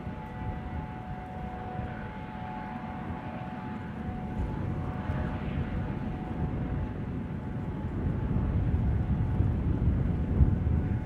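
Airbus AS365 Dauphin twin-turbine helicopter taxiing on the ground with its rotors turning: a dense low rotor rumble under several steady whining tones. It gets somewhat louder in the last few seconds.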